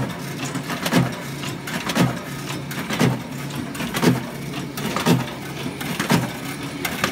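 James Burn automatic paper punching machine running, punching with a regular thump about once a second over a steady motor hum.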